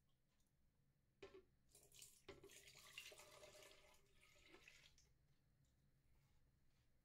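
Milk pouring into a plastic blender jug: a faint splashing that lasts about three seconds, with a light knock just before it.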